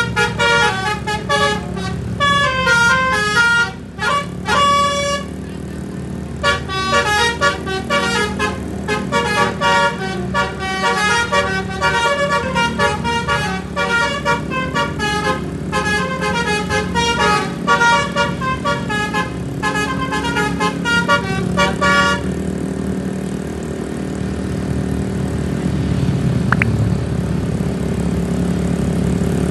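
Bus basuri musical air horn playing a fast melody of short stepped notes, with a brief break about five seconds in, stopping about 22 seconds in. The bus's engine hums steadily underneath.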